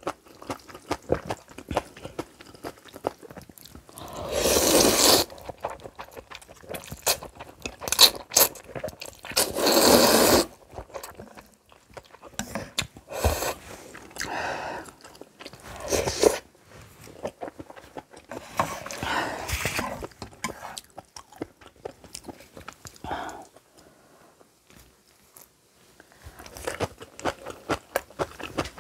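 Close-miked mukbang eating: crunchy bites and chewing of kimchi, with wet mouth clicks throughout. Two longer, louder slurps of noodles come about four and ten seconds in.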